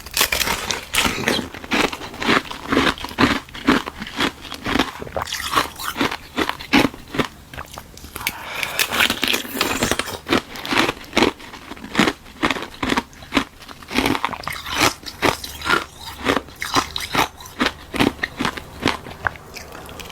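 Close-up biting and chewing of hard ice made from frozen buckwheat tea: a fast run of loud, sharp crunches, several a second, with a rougher stretch of grinding about halfway through.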